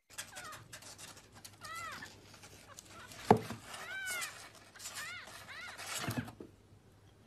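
Young kitten mewing: several short, high-pitched mews that rise and fall, with one sharp knock about three seconds in, likely against the cardboard box, and some scuffling near the end.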